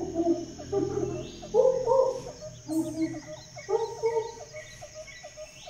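Jungle ambience: birds calling in held notes that step up and down in pitch, then a run of short repeated chirps about four a second, over a steady high insect drone.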